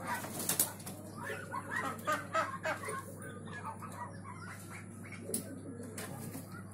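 A crowded flock of domestic ducks and chickens calling in a shed: many short overlapping calls and clucks, with a few sharp rustles.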